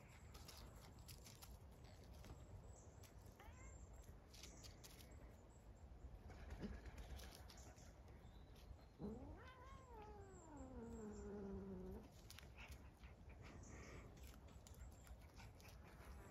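Domestic cat giving one long growling yowl about nine seconds in, rising and then sliding down in pitch over about three seconds: a cat's warning growl at a puppy during rough play.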